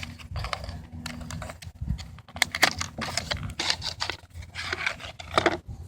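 Irregular clicks and short scrapes of a Victorinox One-Hand Forester pocket knife being handled and its blade and tools worked open.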